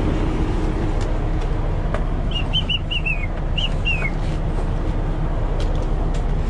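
Kenworth T680's PACCAR diesel engine running with a steady low rumble. About two seconds in comes a quick run of about seven short high chirps, the last ones falling in pitch.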